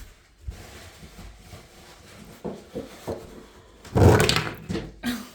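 Handling noises from cleaning out a mouse container: soft knocks and rustles, with a louder clatter and rustle about four seconds in and another brief one near the end.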